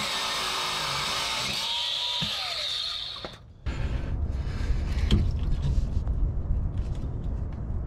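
Angle grinder cutting through a steel exhaust hanger rod, sparks flying, its cutting noise winding down about three seconds in. Then handling rumble and light metal clunks as the cut hanger bracket is pulled free of its rubber isolators.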